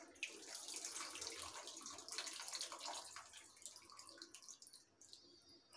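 Tamarind water poured from a cup into a pan of gravy, a faint splashing trickle that tapers off about four seconds in, followed by a few light scrapes of a spoon stirring in the pan.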